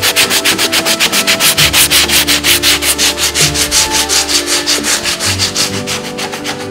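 Hand sanding, quick back-and-forth strokes at about six a second, easing slightly near the end.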